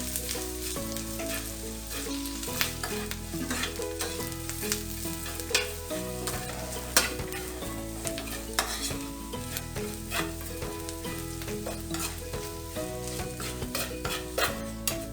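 Sliced onions and curry leaves sizzling in hot coconut oil with freshly added chilli powder, stirred with a spoon that scrapes and clicks against the pan every second or so.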